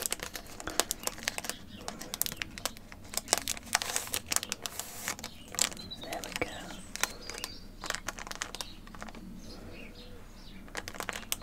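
A Pokémon booster pack and its cards handled close to the microphone: the wrapper crinkles and the cards give a dense, irregular run of sharp clicks and taps.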